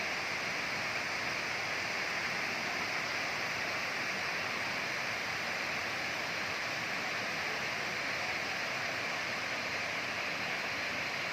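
Waterfall water rushing steadily, an even hiss with no breaks.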